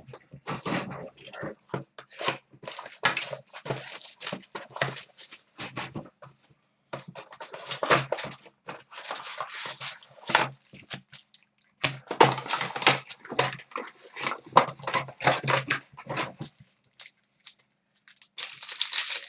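Trading-card pack wrappers being torn open and crinkled while cards are handled: a busy run of crackling rips and clicks, with a louder rip near the end.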